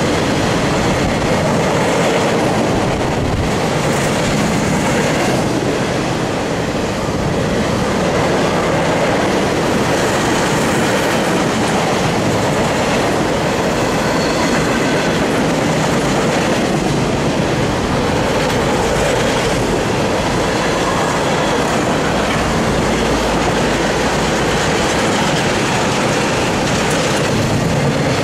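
Freight train of empty intermodal well cars rolling past, with a steady clatter of steel wheels over the rail joints.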